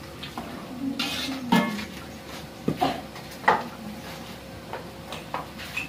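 Metal spatula and dishes clinking and knocking: scattered sharp strikes against a large wok and plates during cooking.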